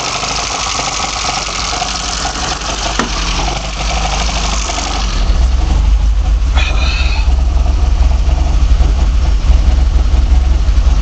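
BMW M10 four-cylinder engine running on sidedraft individual throttle bodies, with a steady low pulsing. There is a click about three seconds in. About five seconds in the sound gets heavier and deeper while the hiss above it drops away.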